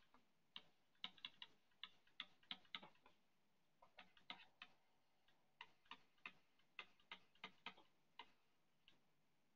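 Stylus tip tapping on a tablet's glass screen during handwriting: faint, irregular clicks coming in quick clusters with short pauses between.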